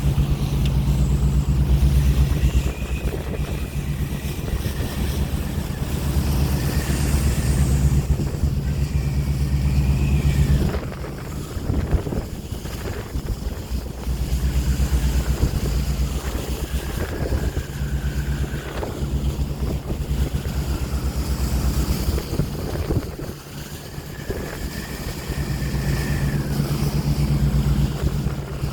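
Wind buffeting the microphone over ocean waves: a heavy low rumble that eases off twice, with a thin whistling tone that rises and falls now and then.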